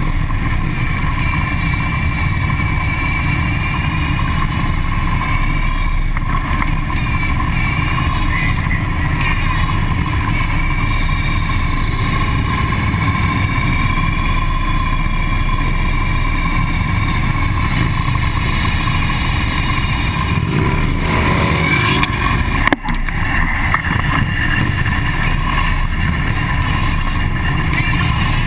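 Harley-Davidson police motorcycle V-twin engines running steadily at low riding speed, heard from a mount on one of the bikes in a close column. A single sharp knock comes about three-quarters of the way through.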